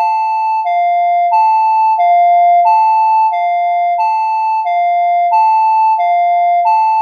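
Electronic two-tone emergency alert alarm: a buzzy low and high tone alternating evenly, each held about two-thirds of a second, repeating without a break.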